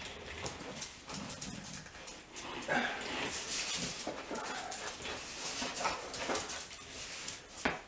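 A dog whining and whimpering in several short, high calls, with scattered light clicks and knocks.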